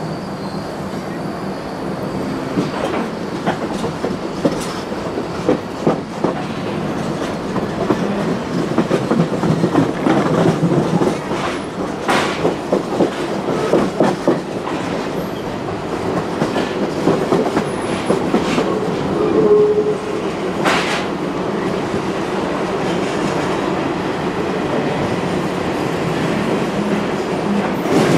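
Excursion train heard from aboard a passenger car as it rolls out: wheels clicking over rail joints over a steady rumble, gradually getting louder, with a couple of sharp metallic clanks.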